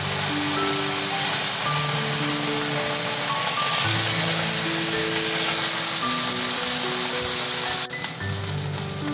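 Hamburger steak sizzling hard in a frying pan with liquid in it, a steady hiss under background music with slow, held notes. About 8 seconds in the sizzle suddenly drops in level and becomes a finer crackling spatter.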